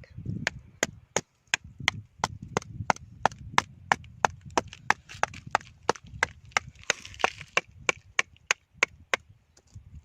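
Steady, rhythmic sharp knocks, about three strikes a second, like repeated chopping or hammering.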